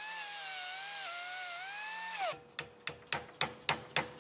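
Right-angle air die grinder with a sanding disc grinding a brass bushing: a whine over hiss that wavers in pitch, then winds down a little over two seconds in. The oversized new pedal-cluster bushing is being trimmed back because it is too tight to fit. A brass hammer then taps the bushing in the vise, about four taps a second.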